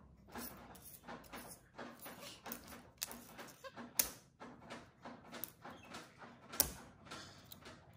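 Irregular light taps and clicks of wooden nail-file sticks knocking and scraping on a stone countertop as a capuchin monkey handles them, with a few sharper knocks about four seconds in and near the end.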